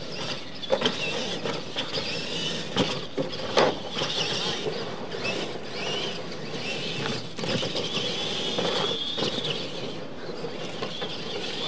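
Radio-controlled Clod Buster-style monster trucks racing on dirt: the high whine of their electric motors and gearboxes, rising and falling with throttle, with several sharp knocks from landings and impacts in the first few seconds.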